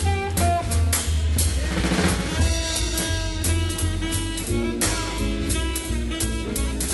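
Background jazz music with a drum kit keeping a regular beat over sustained instrumental notes.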